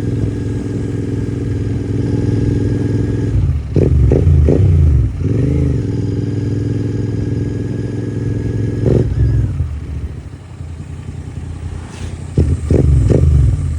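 Big motorcycle engine running steadily, with louder bursts of throttle about four seconds in and again near the end, and an easing off around the ten-second mark.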